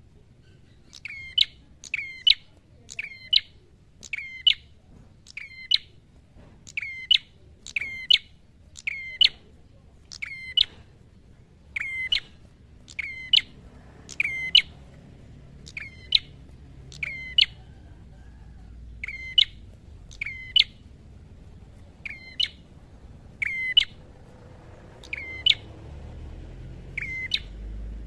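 Red-headed prenjak calling in its fighting mood: sharp, quick double-noted calls repeated about once a second, with one short pause about two-thirds of the way through.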